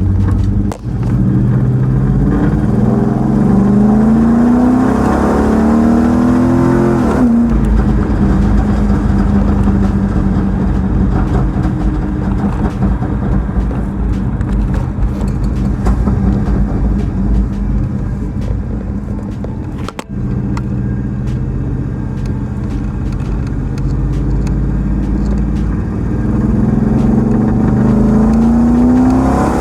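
Dodge Charger's 5.7L Hemi V8 accelerating under load, its pitch climbing for several seconds, then dropping sharply at an upshift about seven seconds in. It runs steadily with tyre and road noise through the middle and climbs again near the end.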